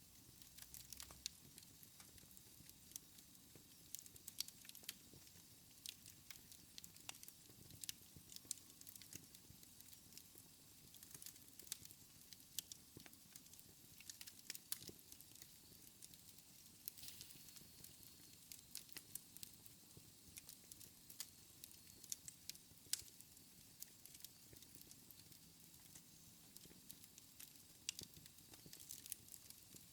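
Wood fire in a fireplace crackling quietly: many small, sharp, irregular pops and snaps over a faint steady hiss.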